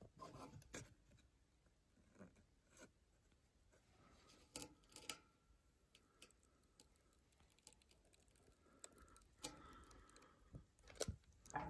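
Near silence with scattered faint clicks and light crackles from lighting crumpled paper under kindling in a wood stove with a long butane lighter.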